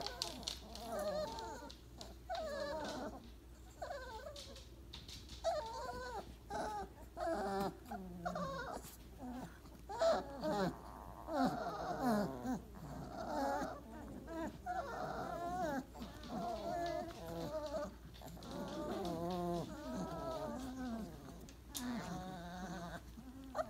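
A litter of four-week-old Weimaraner puppies whimpering and whining, many short, wavering cries overlapping one another.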